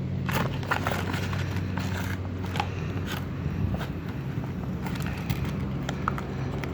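A stick stirring sticky slime mixture in a container, with irregular wet scraping and crackling clicks, over a steady low hum.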